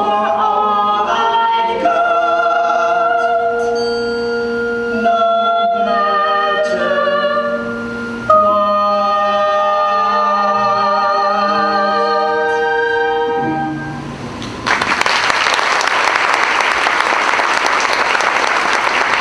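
A man and a woman sing a stage-musical duet with instrumental accompaniment, ending on long held notes. About fifteen seconds in, audience applause breaks out and continues.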